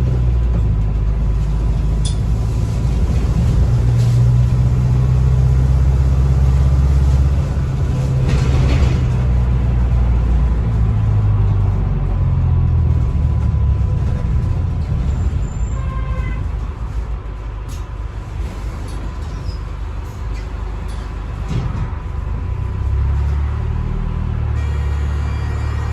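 Cabin sound of a hybrid double-decker bus on the move: a low engine and road rumble with a thin steady whine over it, and a short rush of hiss about eight seconds in. The rumble drops back in the middle and picks up again near the end as the bus pulls away.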